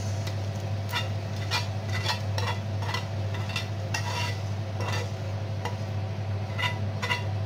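Metal tongs and a spoon scraping and clicking against a ridged grill pan as leftover fried garlic and sauce are scooped out. Irregular clicks and scrapes run throughout over a steady low hum.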